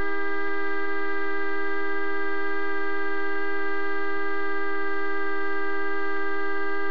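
A wrecked coach's horn sounding continuously on one steady, unwavering note.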